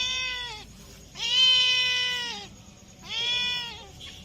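Cat meowing: three drawn-out meows of about a second each, the first already under way, the middle one the loudest.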